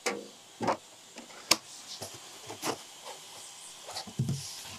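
A magnetic double-sided build sheet being laid onto a 3D printer's magnetic bed and handled: a few short taps and knocks, with one sharp click about a second and a half in and duller thumps near the end.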